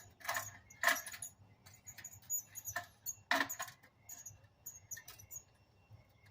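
Small metal clicks and scrapes of a screwdriver prying at a tight connector on a clothes dryer's heating element. The louder ones come twice near the start and once about three seconds in, with lighter ticks between.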